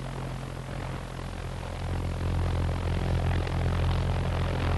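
Argus pulse-jet engine of the V-1 flying bomb running on a test run at part load: a steady, low, rapid buzz that grows louder about two seconds in.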